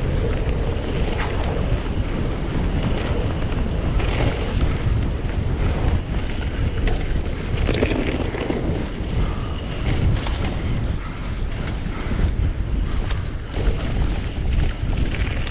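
Wind buffeting the action-camera microphone over the rumble of mountain bike tyres on a rough trail, with scattered knocks and rattles from the bike.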